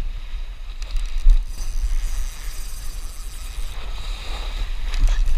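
Wind buffeting the microphone in a steady low rumble, with a hiss of small waves washing up the beach that swells for a couple of seconds in the middle.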